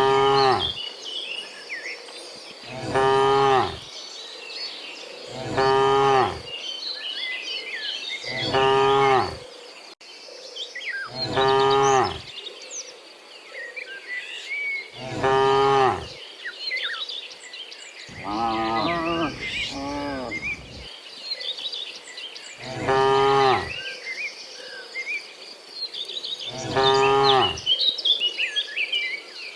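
Cows mooing over and over, about nine long low moos spaced a few seconds apart, with high chirping in the background between the calls.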